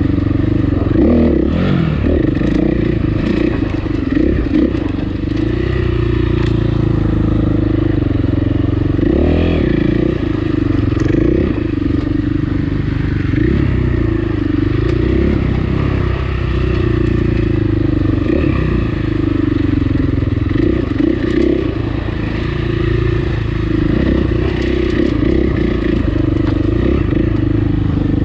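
Dirt bike engine running under way on a trail, its revs rising and falling again and again with the throttle, with clatter and knocks from the bike over rough, rocky ground.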